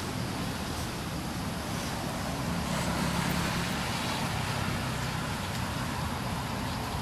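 Steady low hum of a running engine under a noisy outdoor background, swelling slightly about three seconds in.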